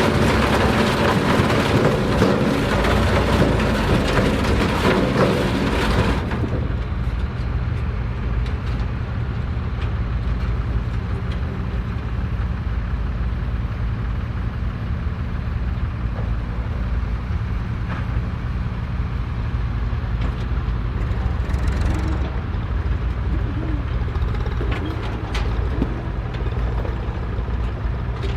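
Tractor engine running steadily with a low hum. For about the first six seconds a louder, hissier machine clatter lies over it and then stops abruptly.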